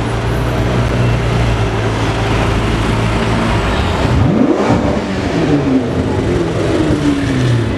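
A supercar engine running low and steady, then revved sharply about four seconds in. The pitch climbs quickly, then sinks slowly over the following seconds.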